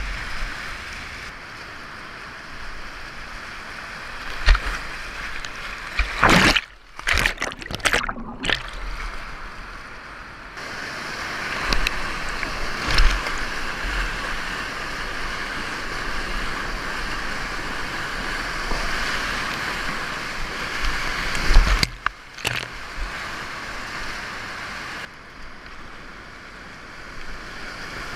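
Whitewater rapids rushing steadily under a kayak, with splashes against the boat and paddle strokes. The sound briefly drops out twice, about a quarter of the way in and again near three-quarters, as water covers the microphone.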